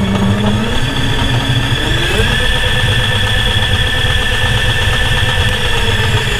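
Electric go-kart's two-wire DC motor and its controller running on a first power-up test under twist throttle. A steady hum carries a whine that climbs in pitch about two seconds in, holds, and eases back down near the end, over a constant high-pitched controller whine.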